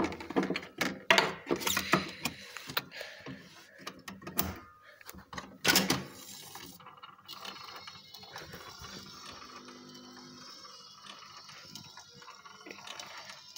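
Irregular mechanical clicks and knocks from an Akord 103 record player being handled after lubrication, the loudest about a second in and near six seconds in. After that comes a faint steady hiss.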